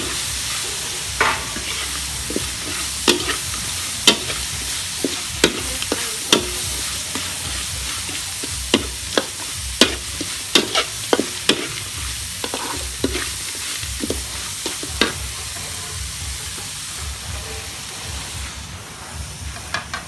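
Small crabs and greens sizzling in oil in a steel wok, stirred with a spatula that knocks and scrapes against the pan in irregular sharp clicks. The clicks stop after about fifteen seconds while the sizzling goes on.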